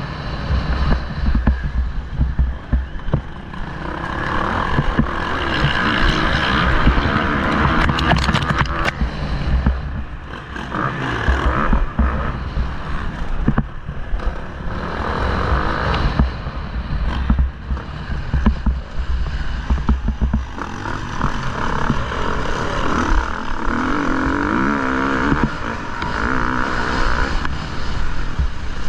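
Motocross bike engine heard from an onboard camera, revving up and easing off again and again as it is ridden round the track, with wind buffeting the microphone.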